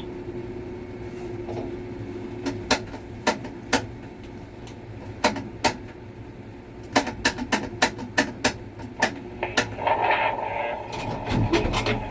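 Steady low hum of a crane's machinery heard from inside the cab. From about two and a half seconds in, irregular sharp clicks and knocks come in and become more frequent toward the end.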